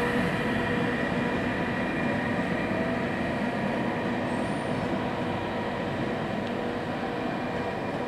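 NSB El 18 electric locomotive and its passenger train running along the platform: a steady electrical hum with a few held tones over rolling noise, slowly fading as the train draws away.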